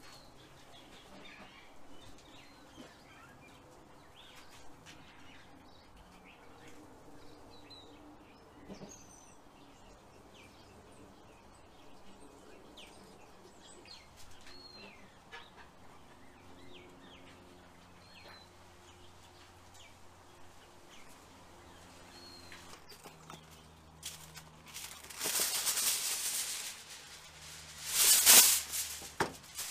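Faint bird chirps, then near the end aluminium foil being pulled off its roll and crinkled, in two loud spells of crackling.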